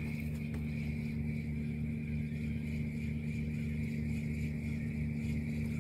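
An engine running steadily: a constant low hum with a thin whine above it, not rising or falling.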